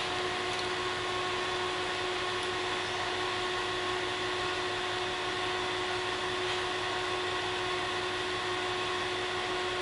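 A running machine making a steady, unchanging hum with a constant tone over an even hiss.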